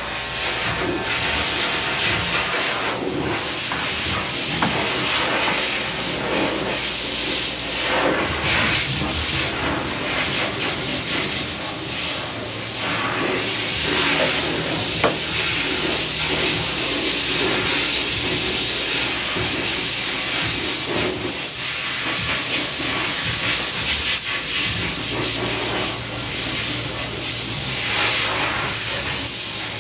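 A steady hiss that brightens and fades in waves, with a faint low bass beat underneath.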